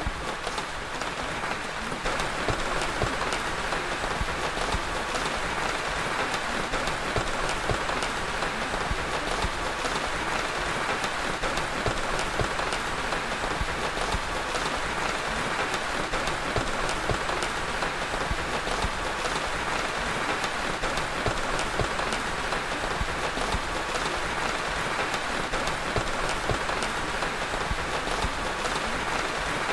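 Steady rain falling, a dense even hiss with fine scattered drop ticks, growing slightly louder about two seconds in. It is the water-sound bed of a subliminal affirmation track.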